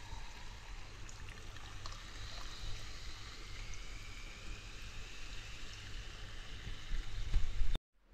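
A clear mixer being poured into a glass over ice, with a steady splashing, fizzing trickle whose pitch rises slowly as the glass fills. Near the end, low bumps get louder, then the sound cuts off suddenly.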